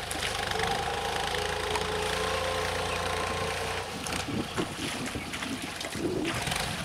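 New Holland TT55 tractor's diesel engine running steadily under load while its rotary tiller churns through flooded paddy mud and water, with a steady whine in the first half. About four seconds in, the sound turns more uneven as the water splashes and sloshes.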